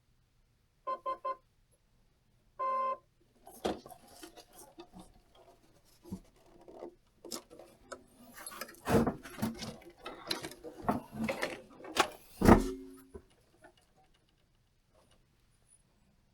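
Start-up beeps from an RC truck's Hobbywing Fusion Pro brushless motor and speed controller: three quick beeps, then one longer beep. After them come irregular clicks, knocks and scrapes, with a few louder knocks around the middle.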